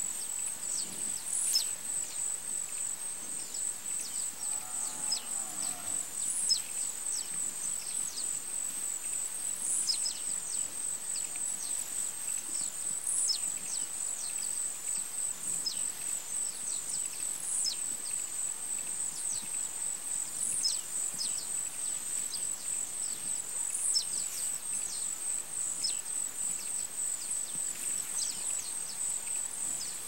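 Steady, rapidly pulsing high insect trill, with short high chirps from birds every second or two. A brief low animal call sounds about five seconds in.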